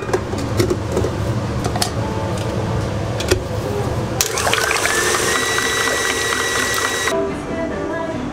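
Stand mixer motor starting about four seconds in with a rising whine, then running steadily for about three seconds as its wire whisk beats a thin liquid in a steel bowl, and cutting off abruptly. Before it starts there are light clinks as the metal bowl is handled and set onto the mixer.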